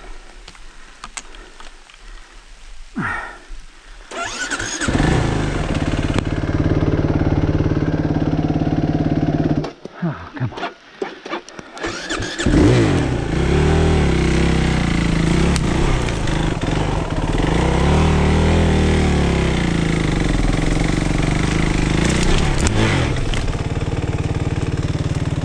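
Suzuki RMX450Z's single-cylinder four-stroke dirt-bike engine starting about five seconds in and running. It cuts out about ten seconds in, is restarted a couple of seconds later, and then runs on with the revs rising and falling.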